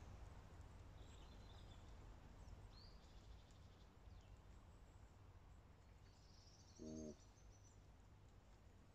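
Near silence: a faint low rumble with a few faint bird chirps, and one short low-pitched call about seven seconds in.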